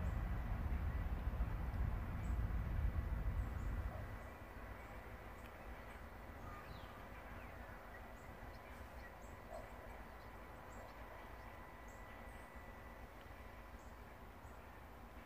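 A low rumble that drops away suddenly about four seconds in, leaving faint outdoor background with scattered small bird chirps.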